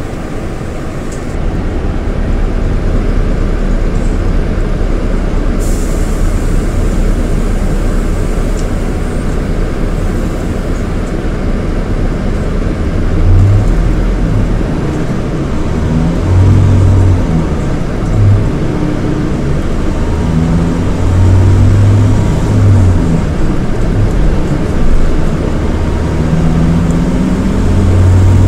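Scania K230IB coach's Scania DC9 230 hp diesel engine running on the move, a steady low drone at first; from about halfway in, the engine note rises and falls again and again as it pulls up and eases off.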